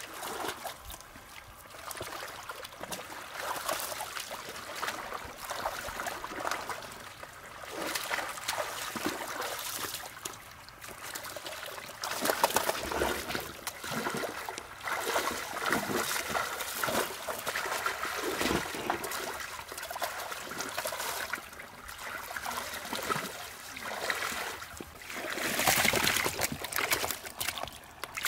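Water trickling and splashing in a muddy fish pond, in uneven surges that swell and fade every second or two.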